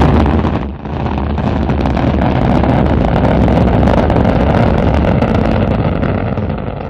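Rocket engine firing: a sudden loud blast, a brief drop under a second in, then a steady deep roar that starts to fade near the end.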